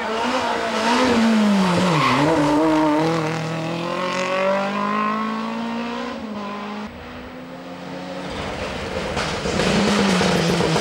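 Rally car engines at full effort. A hatchback's engine drops in pitch as it brakes and changes down for a bend about two seconds in, then revs rise steadily as it accelerates away. After a sudden cut, a Ford Escort RS Cosworth's engine grows loud as it approaches near the end.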